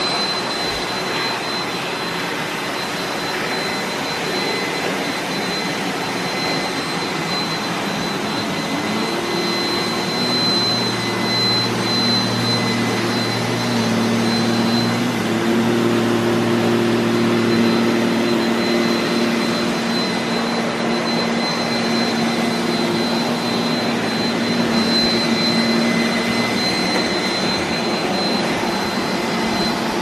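Several robot vacuums, Roombas and Neatos among them, running at once on carpet: a steady combined whir of suction motors and brushes with a constant high whine. Lower hums come in about a third of the way through and drop away near the end as individual units shift load.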